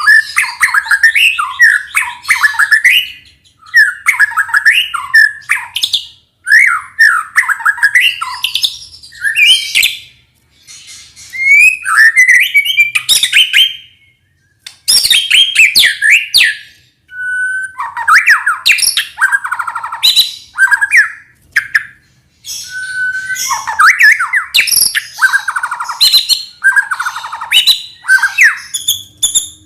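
White-rumped shama (murai batu) in full song, mixing in mimicked phrases of other birds. It sings loud runs of rapidly changing whistles and sharp notes, in phrases a few seconds long with short pauses between them.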